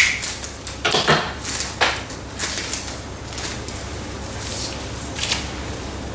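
Knife cutting through the crisp crust of a freshly baked focaccia and a piece being pulled out: a string of short, irregular crunches and crackles.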